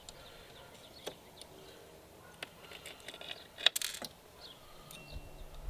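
Faint handling noises of hands working on fittings around a gas RC boat engine: scattered light clicks and taps, with one sharper click about two-thirds of the way through.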